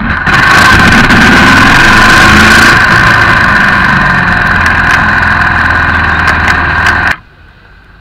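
Yamaha XT225's single-cylinder four-stroke engine running while the bike is ridden, mixed with loud wind rushing over the wheel-mounted microphone. The sound comes in sharply just after the start and cuts off abruptly near the end.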